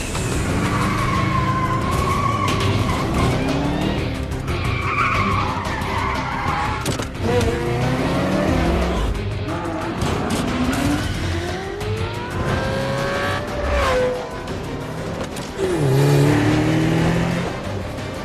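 Action-film soundtrack: car engines revving hard in rising sweeps, with tyre squeals and skids, over a music score. A louder burst comes near the end.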